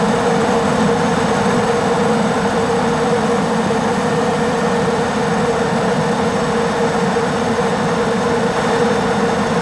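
Super Puma helicopter in flight, heard from aboard: the engines and rotor make a steady drone with a constant whine running through it.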